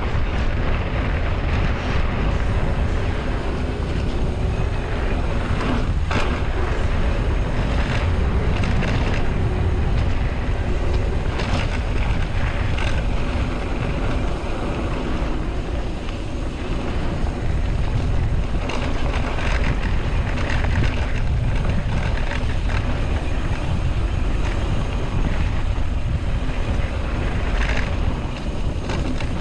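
Wind rushing over the microphone of a mountain bike in motion, a steady loud rumble, with a few short knocks and rattles along the way.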